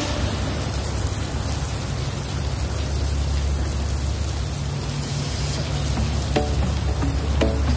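Steady outdoor rushing noise with a strong low rumble. A few short, faint tones come in near the end.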